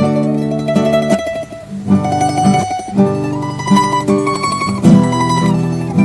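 Background music: a plucked-string tune, mandolin or guitar, with a steady rhythm.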